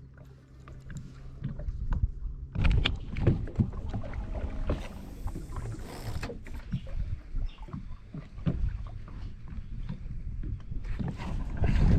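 Small boat under way on choppy water: water slapping the hull and wind buffeting the microphone, turning loud about two and a half seconds in. Under it at the start, a low steady hum from the boat's electric motor.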